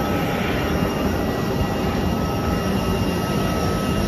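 Steady jet aircraft engine noise: a constant rush with a thin high whine running through it.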